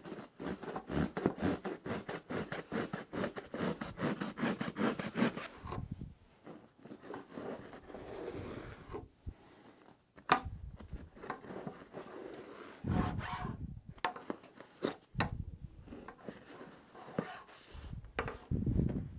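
A knife sawing through upholstery foam in rapid back-and-forth strokes for about five seconds, trimming it flush with the seat board. After that come scattered rubbing and scraping sounds of foam offcuts being handled, with one sharp knock about ten seconds in.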